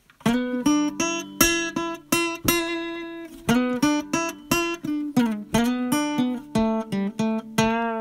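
Acoustic guitar music: plucked notes, roughly two or three a second, each ringing and fading. It starts just after the beginning.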